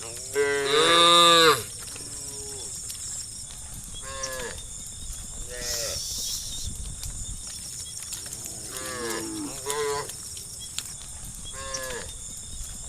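Cattle mooing: a series of calls, the loudest and longest about half a second in and lasting about a second, then shorter, fainter calls every few seconds, over a steady high-pitched hiss.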